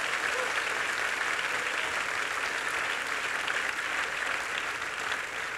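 A large congregation applauding: dense, steady clapping from many hands.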